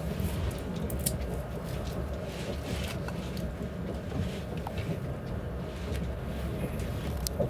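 Steady low rumble of the ES1P Lastochka carriage running along the rails, heard inside the passenger cabin, with a few faint clicks and rattles.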